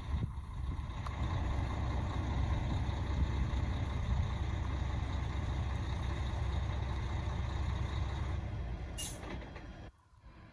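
Bell 205 helicopter running, its two-bladed main rotor and turbine making a steady, heavy low noise. A short hiss comes about nine seconds in, and the sound cuts off suddenly near the end.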